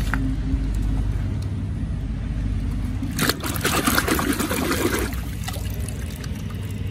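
A hand swishing and splashing in a tub of muddy water, rinsing a toy truck, with a burst of splashing from about three to five seconds in. A steady low hum runs underneath.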